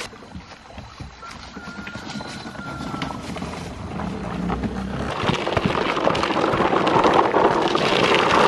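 Footsteps and a plastic toy truck's wheels knocking on a wooden plank footbridge, fairly quiet. From about five seconds in, louder, steady crunching of footsteps on a gravel path.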